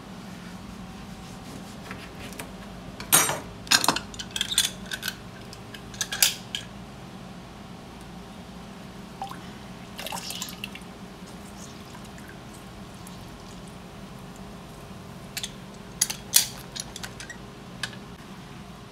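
Oranges being squeezed in a hand-held metal citrus press over a glass blender jar: the press clacks sharply in clusters about three seconds in, once around the middle and again near the end, with the juice dripping and trickling into the jar. A steady low hum runs underneath.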